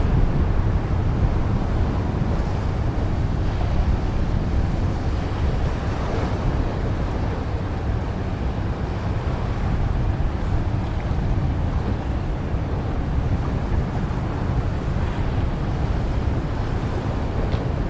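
Wind buffeting the camera microphone, a steady low rumble mixed with the wash of the sea.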